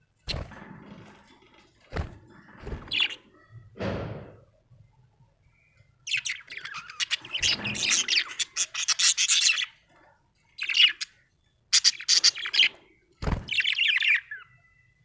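Budgerigar chirping and warbling in a fast, dense run of high chirps from about six seconds in, then shorter bursts. A few dull knocks come in the first four seconds and once more near the end.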